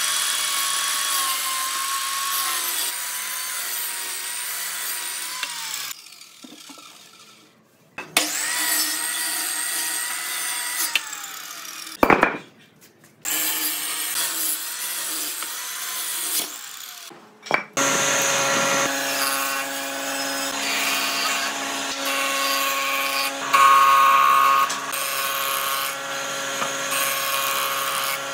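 Sliding miter saw cutting through a bark-covered log in several passes, the motor's whine dropping under load and stopping between cuts. From about 18 seconds in, a jointer runs with a steady hum as a log slab is fed over its cutterhead.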